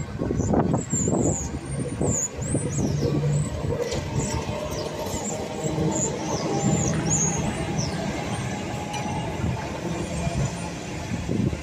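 Double-deck heritage tram running past on its rails, with a low steady hum and rumble and repeated short, high-pitched squeals from its wheels on the track.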